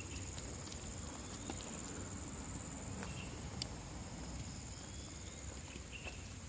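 Steady high-pitched drone of forest insects, with a few faint scattered clicks and short chirps.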